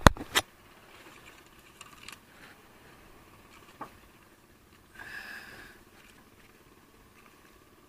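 Paper food wrapper crinkling and rustling as it is unfolded by hand, with a few sharp crackles at the start and lighter rustles after. A brief high tone sounds for under a second about five seconds in.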